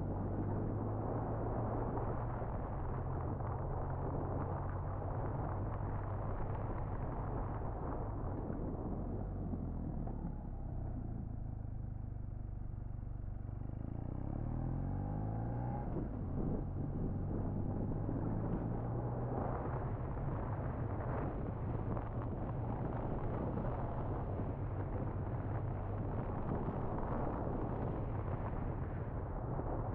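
BMW R1200R's flat-twin boxer engine running under way, with wind and road noise. About halfway through the engine note drops off briefly, then climbs again as the bike accelerates.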